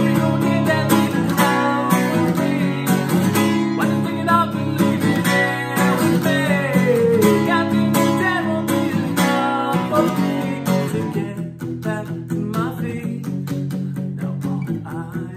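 Acoustic guitar strummed steadily with a man singing over it. The playing gets softer about eleven seconds in.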